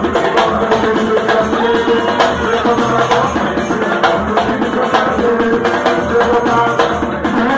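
Brazilian percussion group playing a steady drum rhythm, with dense, even strikes and some pitched lines held over it.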